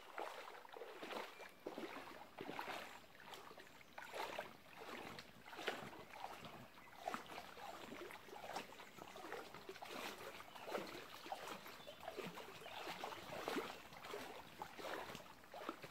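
Legs wading through shallow river water, a steady run of uneven splashes, with water swishing around the inflatable kayak as it is towed along.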